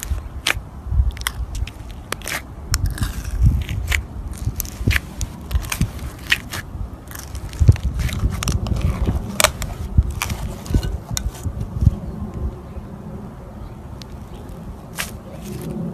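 Slime being squeezed and worked by hand: irregular sharp crackles and pops over a soft low squishing, thinning out for a moment near the end.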